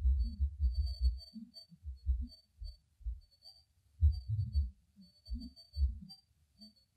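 Heavily noise-reduced outdoor field recording: irregular low rumbling pulses and short warbly low tones, dense at first, thinning out in the middle and picking up again about four seconds in. A faint, broken high chirping runs underneath.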